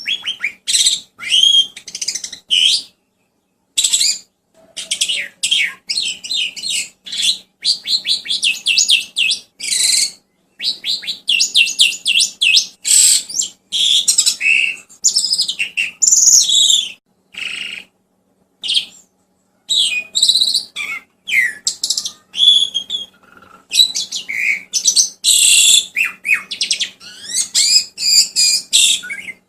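Songbird song of rapid chirps, trills and whistled glides, delivered in loud bursts separated by short pauses, over a faint steady hum.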